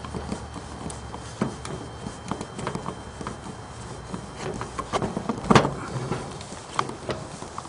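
Hands and a screwdriver fitting a dimmer switch into a plastic electrical box: scattered small clicks and scrapes of metal and plastic, with one louder knock about five and a half seconds in.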